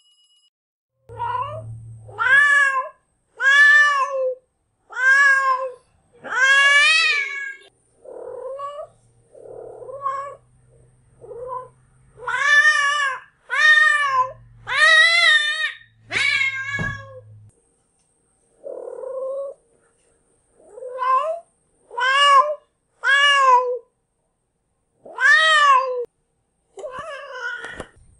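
Female cat in heat calling: a long series of drawn-out yowls, one after another with short pauses. Each lasts about a second, and some waver in pitch.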